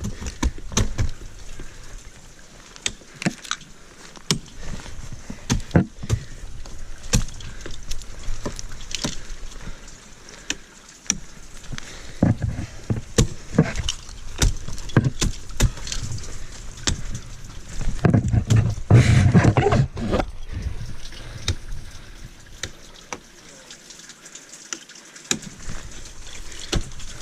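Ice tools and crampons knocking and scraping on a frozen waterfall at an irregular pace, over rustling of clothing and gear, with a louder stretch of rustling and rumble about eighteen to twenty seconds in.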